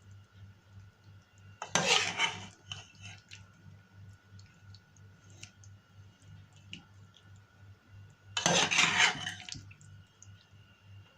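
Cutlery clattering and scraping against dishes in two short bouts, with a few light clicks in between.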